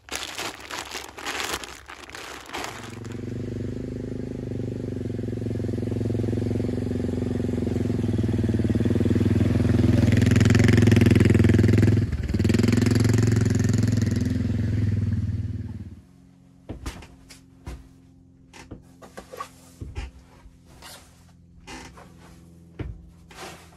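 Four-wheeler (350 ATV) engine running with a steady hum that grows louder, dips briefly about halfway and stops abruptly after about thirteen seconds. Before it, a few seconds of clicks and handling noise; after it, scattered knocks and rustling of bedding being handled.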